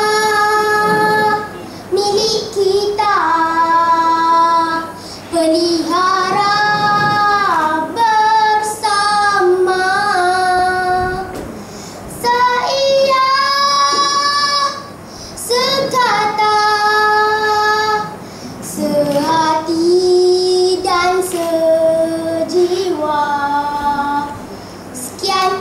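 A young girl singing solo into a microphone, in long held notes with short breaks between phrases.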